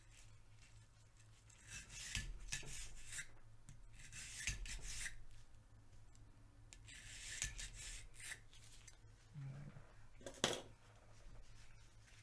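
Scrubbing and rubbing on the metal parts of a field-stripped Tec-9 pistol as it is cleaned, in several short spells of scraping, with one sharp knock about ten seconds in.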